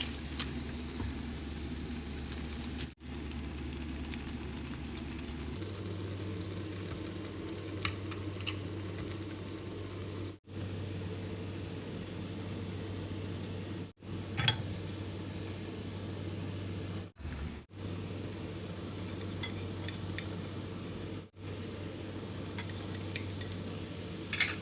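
Food frying in a pan: a steady sizzle over a low hum, with a few light clicks of a utensil. It is broken by several brief dropouts.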